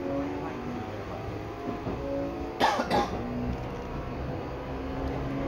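Seibu 6000 series electric train running, heard on board: the Hitachi GTO-thyristor VVVF inverter gives several steady tones that shift in pitch in steps, over the rumble of the running gear. About two and a half seconds in, two short sharp noises come close together.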